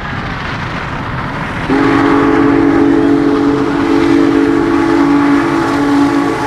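Union Pacific Big Boy 4014 steam locomotive's chime whistle sounding one long, loud blast that starts about two seconds in and is held on, over the rumble of the locomotive working past.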